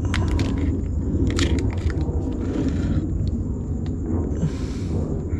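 Plastic garlic-sauce sachet crinkling and crackling as it is handled and torn open by hand, with sharp clicks thick in the first couple of seconds. A brief rustling hiss comes about four and a half seconds in, all over a steady low rumble.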